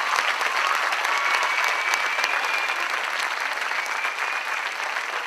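Large theatre audience applauding, a dense steady clatter of many hands clapping.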